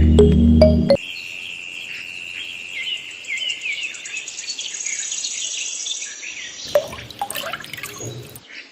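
Background music cuts off about a second in, leaving birds chirping repeatedly with a high trill over it. A few sharp knocks and clinks come near the end.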